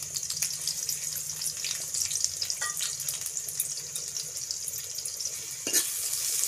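Sliced onions sizzling and crackling in hot oil in a wok, just after going into the pan. Near the end, a spoon scrapes through the pan as they are stirred.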